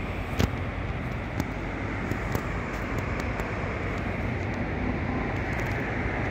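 Steady outdoor background rumble with no speech, broken by a few light clicks, the sharpest about half a second in.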